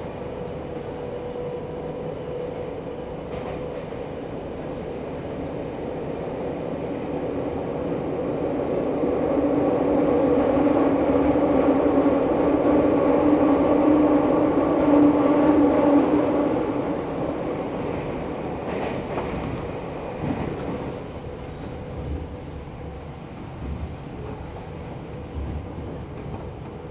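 Tokyo Metro 10000 series subway car running, heard from inside the car: a steady rumble of wheels on rail with a few steady tones in it. It grows louder through the first half, peaks, and eases off after about sixteen seconds.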